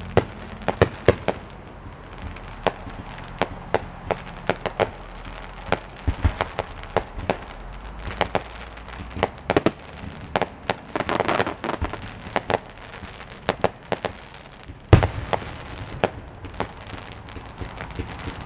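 Aerial fireworks display heard from a distance: a rapid, irregular string of sharp pops from bursting shells. There is a denser, noisier stretch about eleven seconds in, and the loudest single pop comes about fifteen seconds in.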